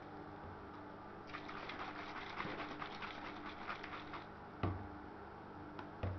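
Water pouring for about three seconds, then a single knock.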